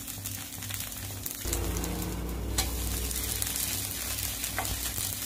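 Rava dosa sizzling and crackling in oil on a hot nonstick pan. About a second and a half in, the sizzle grows louder with a low rumble as the dosa is turned over with a spatula, and a sharp tap of the spatula follows about a second later.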